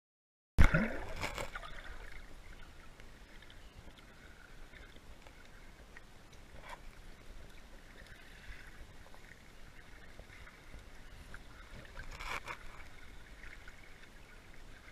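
Camera plunging into river water with a sudden splash about half a second in, then muffled underwater water noise, with a couple of faint knocks.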